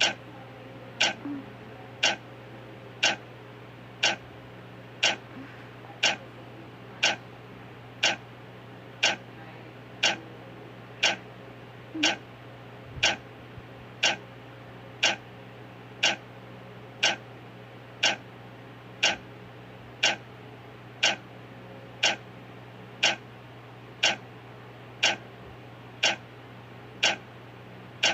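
Countdown clock ticking evenly, once a second.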